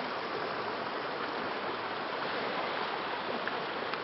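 Steady rushing of running water from a mountain spring stream.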